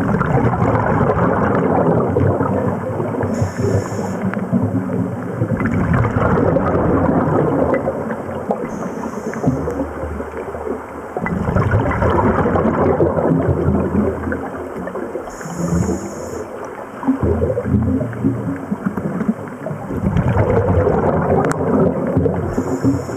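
Scuba regulator breathing underwater: exhaled bubbles rush out in about four long bursts a few seconds apart, with a short faint hiss of inhalation between them.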